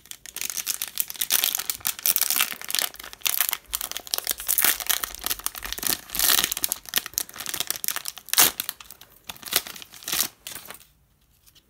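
Wrapper of a 2019 Bowman baseball card pack crinkling and tearing as it is pulled open by hand: a dense run of sharp crackles that stops about a second before the end.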